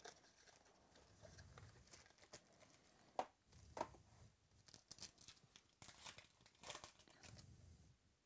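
Faint rustling, crinkling and snapping of trading-card packaging and cards being handled and sorted. A few sharp clicks stand out about three seconds in and again between about six and seven seconds in.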